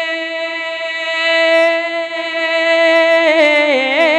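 A man singing a devotional naat into a microphone. He holds one long, steady note for about three seconds, then breaks into a quick, wavering ornamented run near the end.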